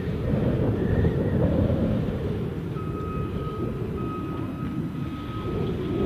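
Heavy diesel engines of a wheel loader and a tipper truck running under load, a steady low rumble. About three seconds in, a reversing alarm starts, sounding long beeps about once a second.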